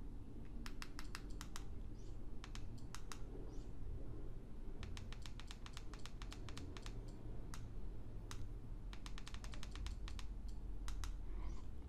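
Small plastic remote-control buttons clicked in quick runs, several presses a second, with short pauses between runs, while stepping through on-screen menus.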